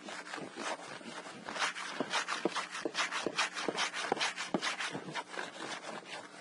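Block plane shaving the edge of a cedar shingle in quick, short, repeated strokes, about two or three a second, trimming it flush at the corner.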